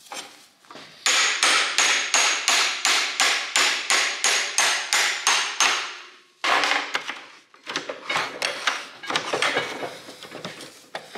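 Hammer blows on the handle of an adjustable spanner fitted to a rusted, seized nut on an old engine crane's wheel fork, about four sharp metallic clangs a second for some five seconds. After a short break comes a looser run of lighter, irregular metal clanks.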